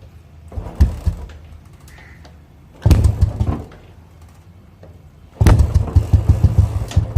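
Royal Enfield Classic 350 BS4 single-cylinder engine being started: two short bursts that fire and die away, then about five seconds in it catches and settles into a steady idle with an even, rapid thump from the exhaust.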